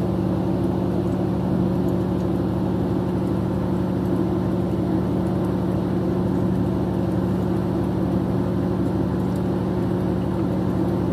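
Steady low machinery drone, unchanging throughout, with a constant low hum under a wash of noise.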